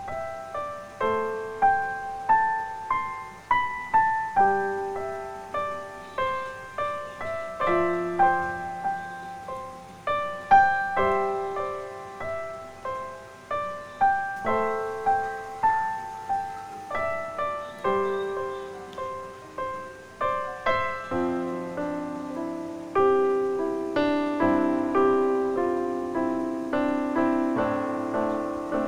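Background piano music: a slow melody of single notes, moving into held chords near the end.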